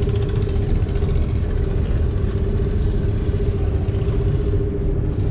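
Boat engine idling steadily: a constant low rumble with a steady hum that does not change pitch.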